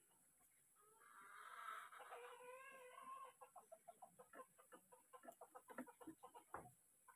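Cucak ijo (green leafbird) singing: a warbling phrase of wavering notes about a second in, then a fast run of short harsh notes, about five a second.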